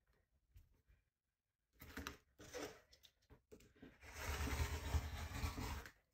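Rotary cutter blade rolling through knit fabric along a quilting ruler on a cutting mat: one steady cutting stroke lasting about two seconds, starting about four seconds in. Before it come a few soft rustles of hands smoothing the fabric and ruler.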